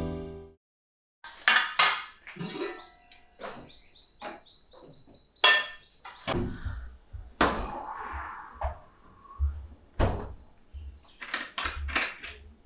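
Steel kitchen pots, plates and utensils clanking and clinking in short, sharp knocks. A bird chirps a quick run of short high notes in the background twice.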